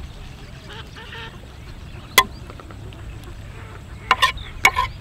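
Metal cooking utensils clinking sharply: once about two seconds in, then three or four quick clinks near the end, over a low outdoor rumble with faint bird chirps.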